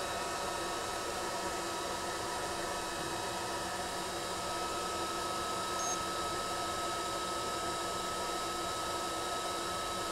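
Atezr P20 diode laser engraver running idle just after power-up: a steady fan whir with a constant high whine through it. A brief faint high beep comes about six seconds in.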